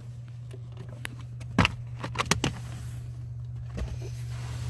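Sharp plastic clicks and rattles as the clip-on cover of the passenger-side kick-panel fuse box is pulled off, the loudest about a second and a half in and a quick cluster of three a little later, over a steady low hum.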